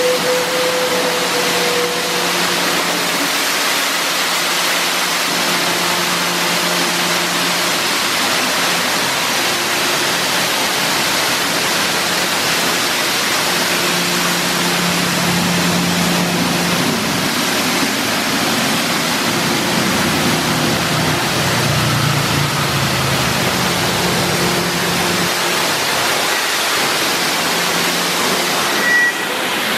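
Aquarama Stargate S7 rollover car wash spraying the car with high-pressure water jets: a steady rushing hiss of spray, with a low hum from the machine underneath.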